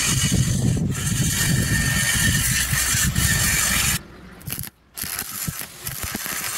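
Stick-welding arc crackling as the electrode burns along a steel joint. It breaks off about four seconds in, goes almost silent for a moment, and the arc is struck again about a second later.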